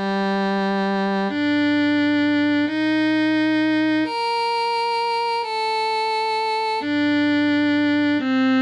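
Instrumental music starts abruptly out of silence: a slow series of sustained chords, each held for about a second and a half before the next.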